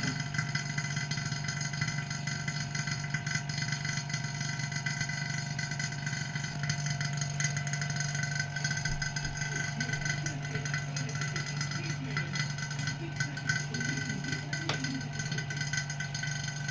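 A small motor running with a steady, even hum, with faint voices in the background.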